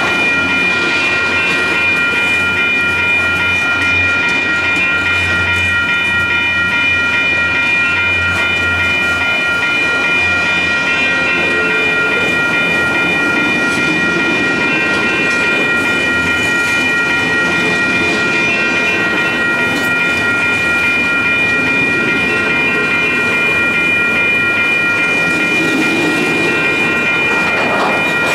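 Double-stack container freight train rolling past close by, the cars clattering over the rail joints, with a steady high-pitched squeal held throughout.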